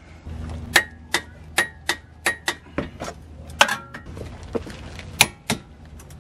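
Ratchet wrench being worked on suspension bolts, sharp metallic clicks with a short ring, a few a second in uneven runs.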